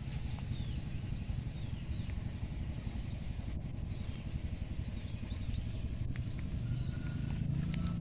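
Outdoor ambience: small birds chirping in short rising calls, clustered a few seconds in, over a steady high thin tone and a constant low rumble.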